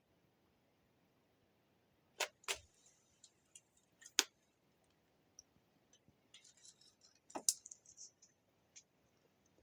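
Scattered sharp clicks and knocks, with the loudest about two, four and seven and a half seconds in and fainter ticks between them.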